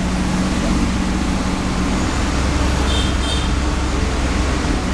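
Cat 320D2 GC excavator's diesel engine running steadily as the machine lifts and swings its bucket. A few short high tones sound about three seconds in.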